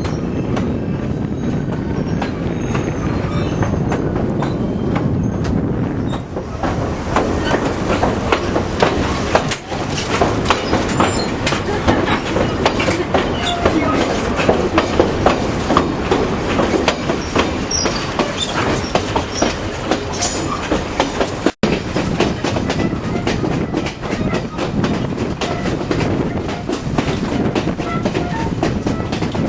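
Ontario Northland mixed train rolling along the track: a steady rumble with rapid clickety-clack of the wheels over the rail joints, busier from about six seconds in. The sound cuts out for an instant about two-thirds of the way through.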